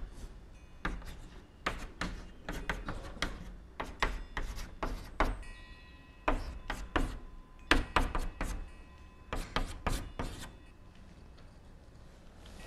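Chalk writing on a blackboard: a quick, irregular run of taps and short scrapes as characters are written, stopping about ten seconds in.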